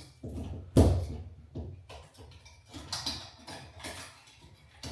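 Plastic and metal knocks and clicks from a recessed can light and its wiring being handled. The loudest is a single sharp knock about a second in, followed by scattered lighter clicks.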